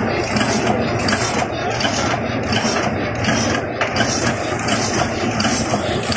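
JBZ OC12 high-speed paper cup making machine running, with a fast, even mechanical clatter.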